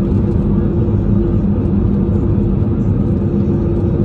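Airbus A320 jet engines and rushing air heard from inside the cabin while climbing after takeoff: a loud, steady rumble with a constant low hum.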